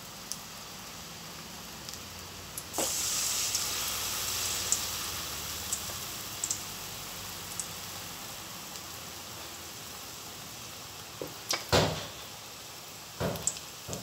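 Battered, stuffed bajji chillies deep-frying in hot oil in an aluminium kadai, a steady sizzle. About three seconds in the sizzle jumps suddenly louder as another battered chilli goes into the oil, then slowly eases; a few knocks near the end.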